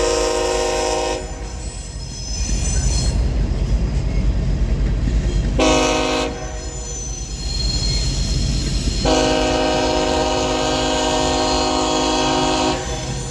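Train air horn, several notes sounding together as a chord: a blast that cuts off about a second in, a short blast around six seconds, then a long blast of nearly four seconds. A steady low rumble runs underneath.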